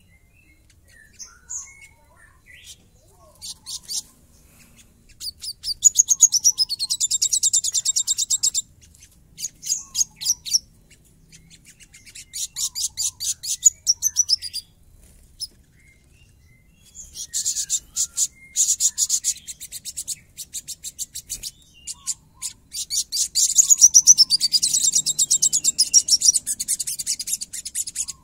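Olive-backed sunbird singing: bursts of very rapid, high, coarse trills lasting a few seconds each, separated by short pauses with a few single chirps, and the longest and loudest burst near the end.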